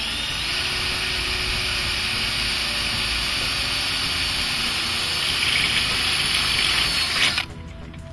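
Cordless drill boring a rivet hole into a sailboat's metal boom, running at a steady speed. It grows louder in its last couple of seconds, then stops abruptly about seven seconds in.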